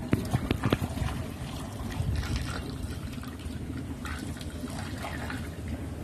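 Milk poured from a plastic dipper through a plastic funnel into a calf feeding bottle, trickling and splashing as it fills. A few sharp clicks come in the first second.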